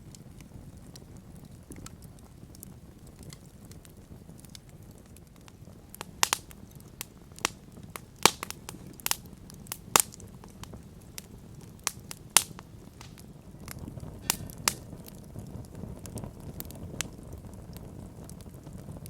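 Wood campfire crackling, with a scattering of sharp pops from the burning wood, most of them through the middle, over a low steady rumble of the flames.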